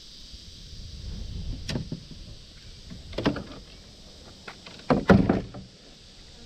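A few knocks and thumps against a kayak, the loudest pair about five seconds in, over a steady high buzz of insects.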